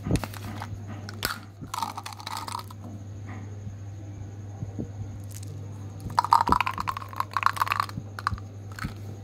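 Small sugar-coated chocolate gems clicking and rattling against a small plastic candy bottle and in the hand as they are tipped out and dropped back in, with the densest clatter about six to eight seconds in. A steady low hum runs underneath.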